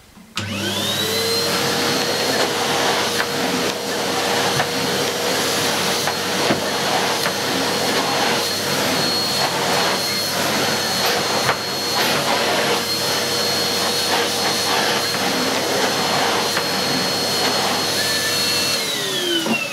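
Numatic James JVP180 bagged 620-watt vacuum cleaner switched on: its motor whine rises to a steady pitch within about a second and runs steadily while the floor nozzle is worked over carpet, with occasional light knocks. Near the end it is switched off and the whine falls away as the motor runs down.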